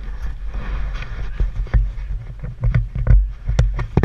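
Handling noise from a helmet-mounted action camera as the helmet is moved and put on: a steady deep rumble with many short knocks and scrapes against the mount.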